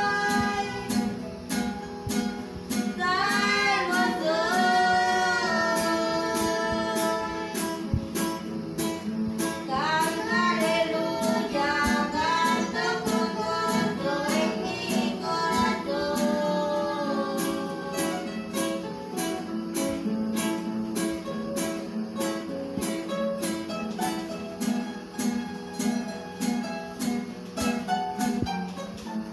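Acoustic guitars strummed in a steady rhythm, accompanying voices singing a worship hymn in phrases; the singing is clearest in the first half, and the guitars carry on alone through much of the second.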